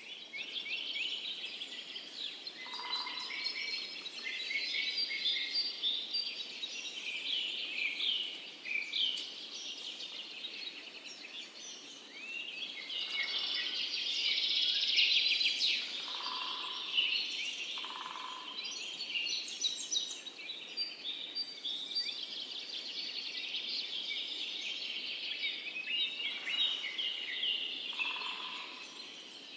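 Many small birds chirping and twittering at once in a dense, continuous chorus. Four short, lower calls from another creature stand out now and then.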